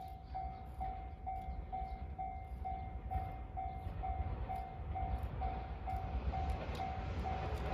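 Japanese level-crossing alarm ringing its repeated single-tone 'kan-kan', about two strokes a second. Near the end the rumble of an approaching train grows louder underneath it.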